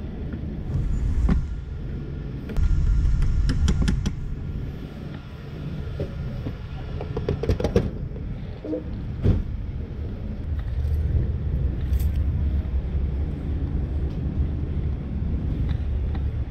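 A 50cc scooter engine running with a steady low rumble. Sharp clicks and rattles come in a cluster about three to four seconds in and again near eight seconds in.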